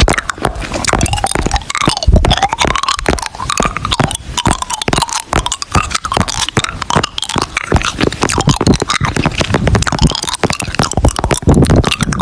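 Dense, rapid, irregular crunching clicks, close to the microphone, with a faint wavering tone underneath.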